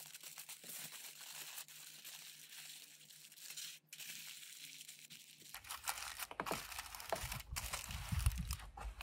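Thin aluminium foil crinkling and crackling as it is folded and crimped around a smoked beef chuck roll. About halfway through, duller handling knocks join the crinkling.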